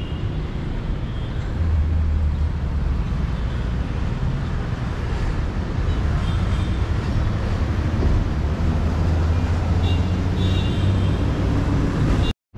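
Steady low rumble of city road traffic mixed with wind on the microphone. It swells louder about two seconds in and again for a few seconds past the middle, then cuts out for an instant near the end.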